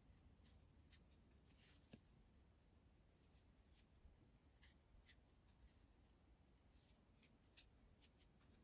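Near silence, with faint, irregular soft rustles and light ticks of yarn and a crochet hook being worked by hand in single crochet stitches.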